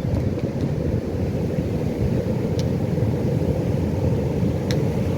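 Pacific Ocean surf making a steady deep rumble, with two brief faint high chirps over it, one midway and one near the end.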